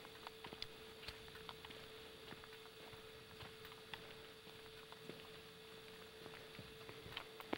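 Near silence: a faint steady hum from the camcorder, with scattered light clicks and taps.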